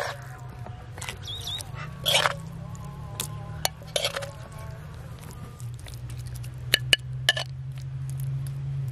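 Metal spoon scraping and clinking against a glazed clay plate as a thick mint chutney is spread, with a few sharp clicks close together near the end, over a steady low hum.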